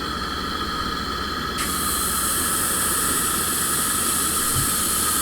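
Pancakes frying in a hot pan: a steady hiss with a faint whine, then about one and a half seconds in a louder, brighter sizzle starts suddenly and holds.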